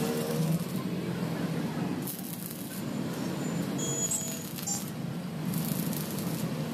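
Stick arc welding: the electrode arc crackling and sizzling while tack welds are laid on the corners of a steel square-tube frame, over a steady low hum.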